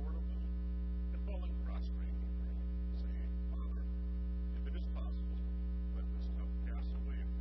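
Steady electrical mains hum: a constant low buzz with a stack of overtones that all but covers faint speech.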